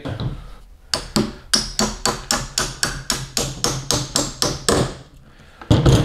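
Hammer tapping the T-latch's hinge pin into the Yeti Roadie 20 cooler lid: a quick run of light, even taps, about five a second, starting about a second in and stopping near five seconds, seating the pin until it is tight.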